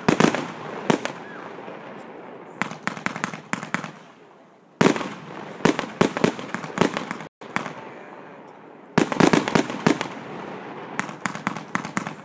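Fireworks finale: fireworks bursting in quick volleys of sharp bangs, with crackling between them. The volleys come in clusters with short lulls between, and the longest run of bangs starts about nine seconds in.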